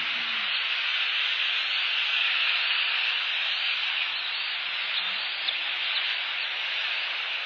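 Steady, relentless rain falling, an even hiss with a few faint ticks about four to six seconds in.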